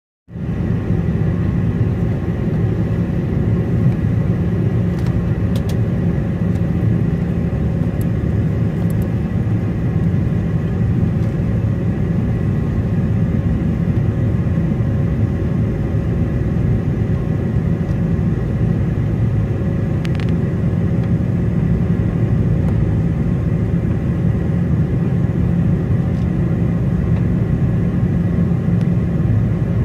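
Steady engine rumble of an Airbus A330 taxiing at low power, heard inside the cabin from a window seat over the wing, with a faint steady high tone.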